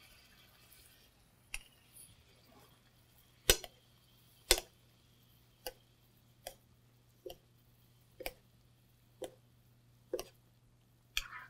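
A spoon clinking against a skillet about once a second as butter is spooned over pan-frying halibut, each tap short and sharp. Two louder knocks come about three and a half and four and a half seconds in.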